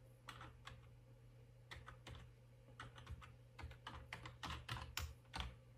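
Computer keyboard keys tapped one at a time in a faint, uneven run as a password is typed at a terminal prompt. A faint steady low hum runs underneath.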